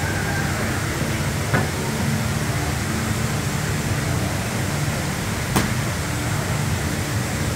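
Steady rushing noise of a tall indoor waterfall pouring down a rock face, with two short clicks.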